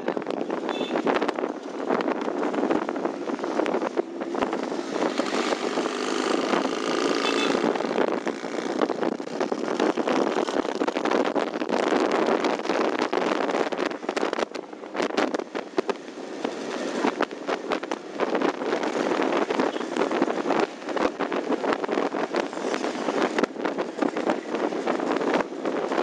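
Wind buffeting the microphone of a moving motorcycle over the steady running of a two-stroke motorcycle engine, with no breaks.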